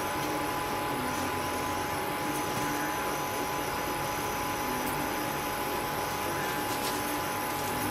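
Steady machine hum with a faint, steady high whine, like a running fan or motor.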